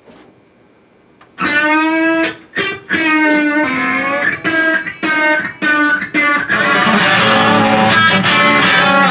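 Electric-guitar music starts about a second and a half in, with sustained notes changing every half-second or so, and fills out into a fuller, continuous band sound near the end.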